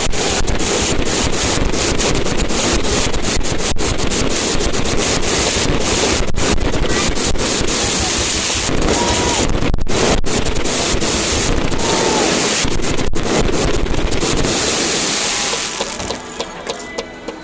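Fireworks display: a dense, continuous crackle and rumble of many shells going off together, with a few faint whistling glides. It thins out and drops in level near the end.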